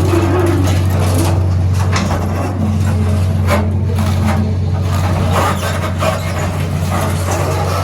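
Heavy engine running steadily under repeated cracking and crunching as building material breaks up during house demolition.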